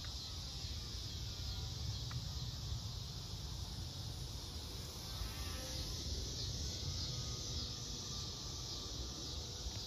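Steady high-pitched buzz of insects over a low rumble of wind on the microphone.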